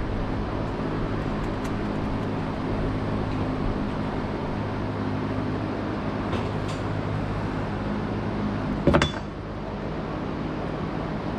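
Tractor engine idling steadily, with a single sharp metallic clink about nine seconds in.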